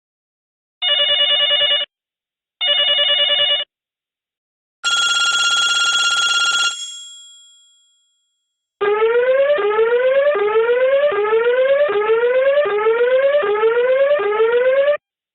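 Sanyo RL-4920 mobile phone ringtones played one after another. First come two warbling electronic tones about a second each, then a longer bright tone that fades out, then a rising electronic glide repeated about every two-thirds of a second for roughly six seconds before it cuts off.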